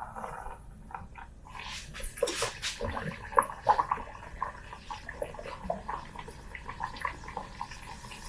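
Fried bake dough frying in hot oil, bubbling and crackling with many small irregular pops.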